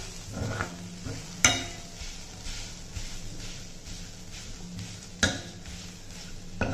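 A steel spoon stirs and mashes boiled potato into sautéed vegetables in a stainless-steel kadai, scraping against the pan while the mix sizzles on the heat. Two sharp metal clinks of spoon on pan stand out, about a second and a half in and again about five seconds in.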